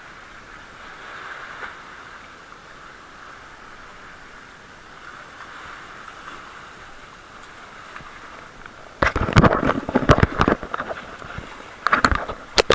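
Seawater washing and rushing through a rocky tidal channel, a steady hiss. About nine seconds in, and again near the end, it gives way to loud, close, irregular splashing and churning of water.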